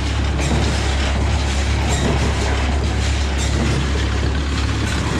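Oliver tractor engine running steadily with a low hum, with rattling and clatter from the old square baler's mechanism hitched behind it.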